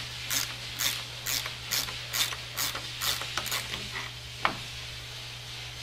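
Socket ratchet wrench worked back and forth on a bolt of a cast-iron printing press, its pawl clicking in quick bursts about twice a second; the strokes stop a little past halfway, with one last click shortly after.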